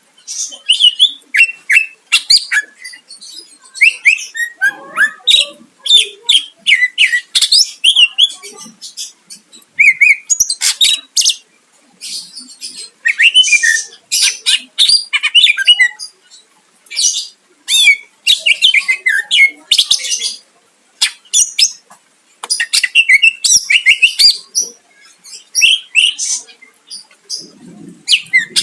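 Cucak ijo (greater green leafbird) singing: loud, varied bursts of chirps, whistles and rapid trills, broken by short pauses.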